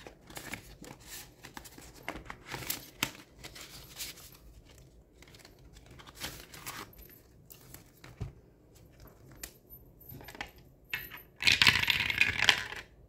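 Paper dollar bills and a laminated cash envelope being handled and shuffled, with light scattered rustles. Near the end comes a louder rustle lasting about a second as the clear plastic pouch in the ring binder is handled.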